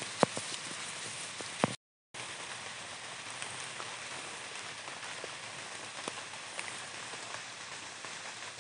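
Light drizzle falling on foliage: a steady, even hiss of rain with a few faint drop ticks. The sound cuts out for a moment about two seconds in.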